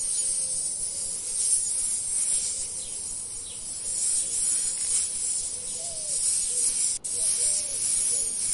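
A steady high-pitched hiss that cuts out for an instant about seven seconds in.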